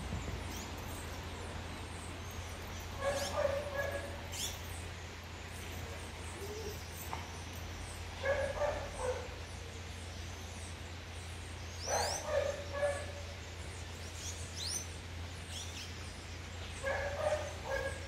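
Puppy giving short yelps and whines in four brief bouts a few seconds apart, over a steady low hum.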